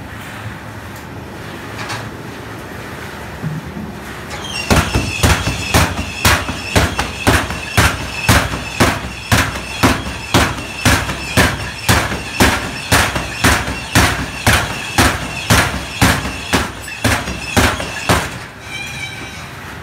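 Cloth bag of tea leaves whirled around on the motor-driven arm of a tea-processing machine, giving a sharp, regular beat with each turn, about two and a half a second. The beat starts about five seconds in and stops near the end.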